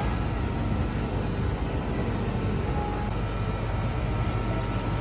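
Steady low mechanical hum and rumble, with a few faint steady whines above it and no change in level.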